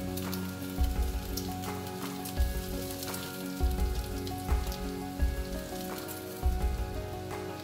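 Bacon strips sizzling and crackling in a hot nonstick frying pan, with background music playing a steady beat.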